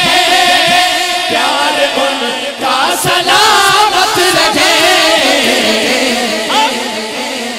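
Male naat reciter singing into a microphone, drawing out long, wavering, ornamented notes of the refrain through a sound system. The voice eases off a little toward the end.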